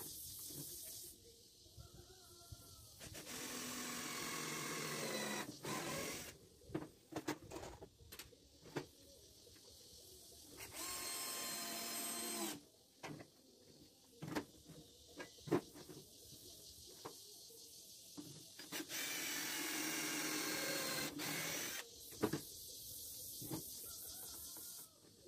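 Cordless drill-driver driving screws into pine boards in several short runs of two to three seconds each. Between the runs come sharp clicks and knocks of the wood and the tool being handled.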